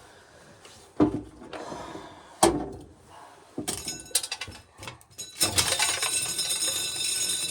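Hand-spun corn sheller working an ear of corn. A couple of sharp knocks come first, then from about halfway a dense, steady rattling clatter as the toothed wheel strips kernels and chews up the cob, rough enough to split it.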